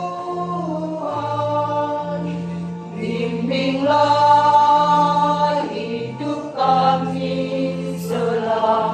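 Church choir singing in harmony, holding each chord for a second or two before moving to the next, over steady low notes.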